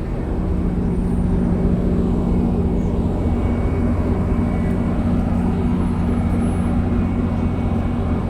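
Metrolink commuter train's diesel locomotive running with a steady low drone, getting a little louder about half a second in.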